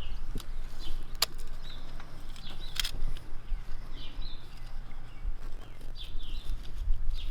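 Songbirds giving short chirps every second or two outdoors, over a steady low rumble, with two sharp clicks in the first three seconds.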